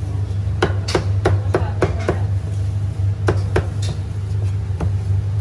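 Cleaver chopping cooked donkey meat on a thick round wooden chopping block: sharp knocks in a quick run of about seven, then a run of three, then a single chop near the end. A steady low hum runs underneath.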